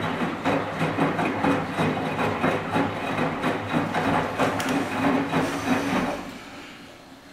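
Zanussi Super Jetsystem front-loading washing machine tumbling laundry in the rinse: a steady motor hum under wet laundry sloshing and slapping in the drum about twice a second. The tumbling stops about six seconds in and fades away over the next second.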